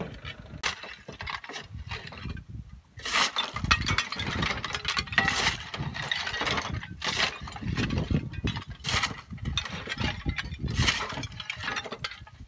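A long-handled shovel scraping and clattering broken roof tiles, brick rubble and wood scraps across a truck's metal flatbed, in irregular strokes that grow louder about three seconds in.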